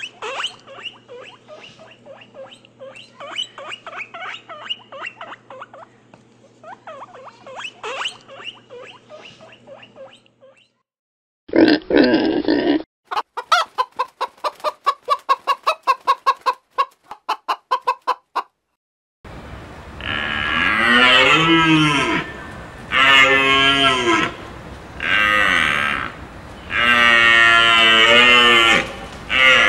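Animal calls in three parts. First come soft scattered chirps and chatter for about ten seconds, then a loud short burst and a fast run of short pulses. From about twenty seconds in, five loud, long calls follow, each rising and falling in pitch.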